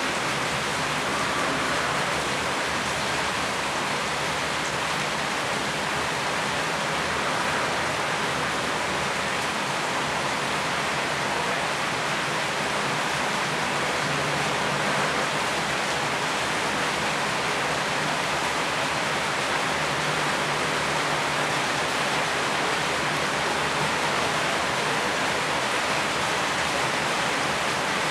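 Steady heavy rain: an even hiss with no separate drops or changes.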